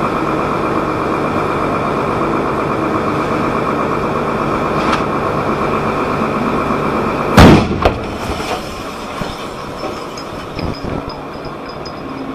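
Burning truck exploding: one sudden, very loud blast a little past halfway, a smaller bang right after, then scattered pops and crackle. Before it there is a steady engine drone.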